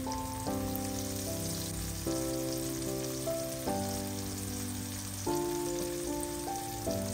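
Oil sizzling steadily as halved cherry tomatoes fry in a pan, under background music of sustained chords that change every second or so.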